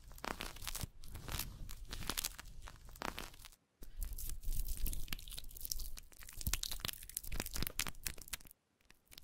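Close-miked crackling, crinkly squish of foamy cream being lathered and massaged over skin, a dense run of small pops and rustles. It drops out briefly about a third of the way in and again near the end.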